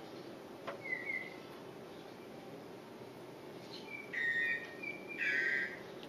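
Bird calling outdoors: a short whistled chirp about a second in, then a louder run of flat whistled notes over the last two seconds, over steady background noise.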